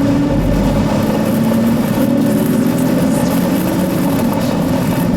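Car engine running steadily, with a constant hum and a noisy rush over it.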